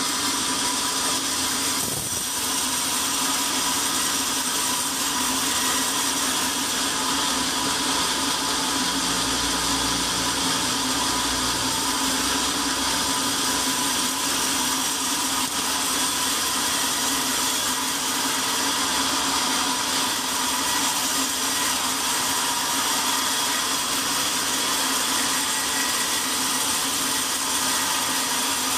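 Band sawmill running steadily, its blade sawing a squared log lengthwise into a slab. A low rumble joins for a few seconds about a third of the way in.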